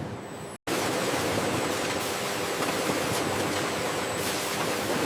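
Steady hiss and hum of machinery on a bottle filling and packaging line. It cuts out for a split second about half a second in, then carries on a little louder.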